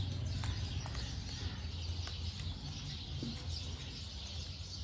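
Rustling and a few light knocks as a person shifts and reaches over a chair, with faint birds chirping in the background.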